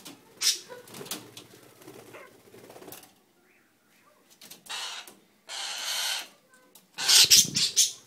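A currawong flapping its wings in short bursts, with scattered sharp taps and clicks before them. The loudest burst of flapping comes near the end.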